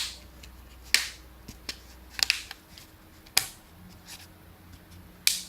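Plastic back cover of a Lenovo A850+ smartphone being pressed back onto the phone by hand, its clips snapping into place in a series of sharp, irregularly spaced clicks.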